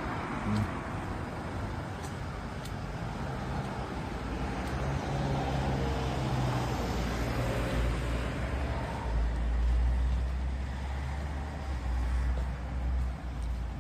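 Road traffic noise: a steady low rumble that swells for a few seconds in the second half.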